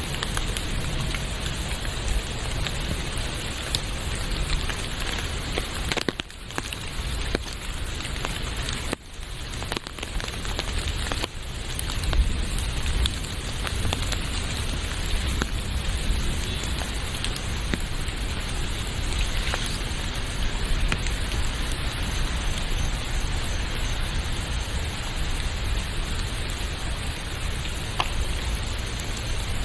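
Steady rain falling, an even hiss of many drops, with the sound briefly dropping away a few times between about six and eleven seconds in.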